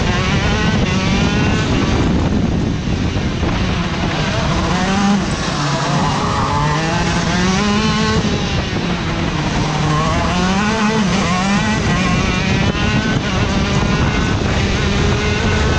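Racing kart engine heard onboard at speed, its pitch repeatedly climbing under acceleration and dropping as the kart slows for corners.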